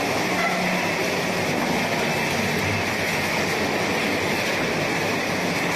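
Flatbread (chapati/tortilla) production line machinery running: a steady, dense mechanical rattle and hum with no let-up.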